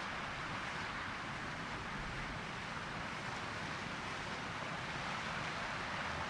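Steady rushing wind noise with no distinct events.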